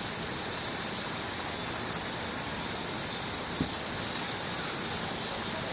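Steady high-pitched chorus of insects, with a single short knock about three and a half seconds in.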